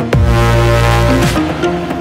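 Electronic background music with a deep bass line that swoops down in pitch twice, over sharp beats and held higher notes.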